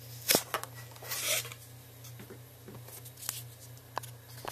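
Handling of a PVC tube, dowel and foam discs: a few sharp clicks and knocks, with a short rubbing scrape about a second in.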